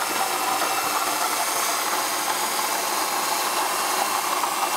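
2004 Ford Taurus V6 engine idling with a steady grinding noise from the front-end accessory pulleys, which the owner suspects is the air conditioning compressor or the power steering pump.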